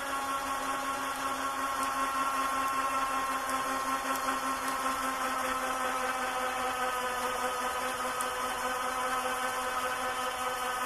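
Champion 3500 lb electric ATV winch reeling in cable under heavy load on a double-line pull, straining to drag a hung-up tree over; its motor and gear train give a steady whine.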